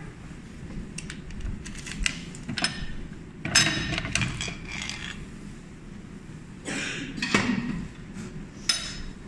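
Clattering and clinking of the plastic and metal parts of a mechanical coin-operated capsule vending machine being handled and opened, in several separate bursts; the longest rattle comes about three and a half seconds in, another about seven seconds in.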